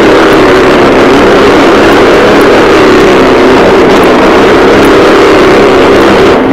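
Motorcycle engine running at a steady speed as it circles a wall-of-death drum: a loud, even drone with no let-up.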